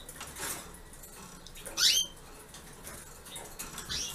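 Canary giving short upswept calls: one loud, clear call about two seconds in, with softer calls shortly after the start and near the end.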